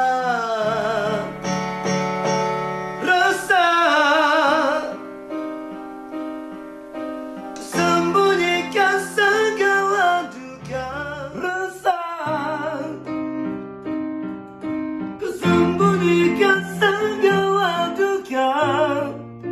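A man singing in Malay over electronic keyboard chords, holding long notes with a wide vibrato between short pauses.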